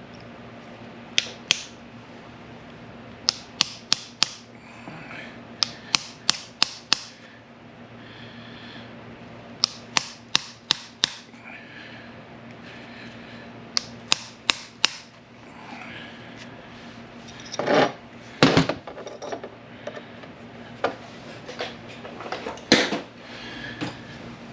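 Hammer tapping a pin punch against a roll pin in a manual-transmission shift tower, in short runs of two to five sharp metallic taps, with a few heavier knocks near the end.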